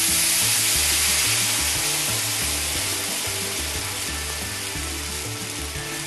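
Water poured into a hot oiled pan of browned zucchini, hissing and sizzling hard in a burst of steam, the hiss slowly dying down. Background music with a steady bass beat runs underneath.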